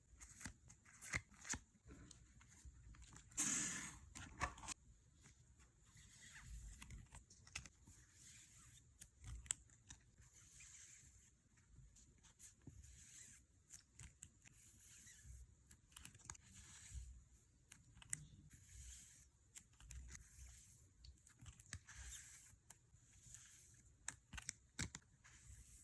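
Packaging being handled and torn open: faint rustling with many small clicks and taps, and one louder tearing rustle about three and a half seconds in.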